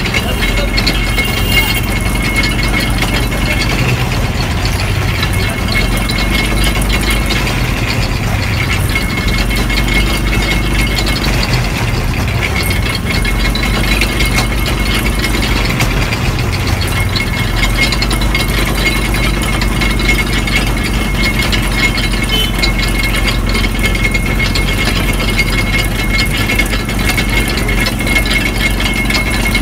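Sugarcane juice crusher running, its metal gears and rollers clattering steadily as stalks are fed through and crushed.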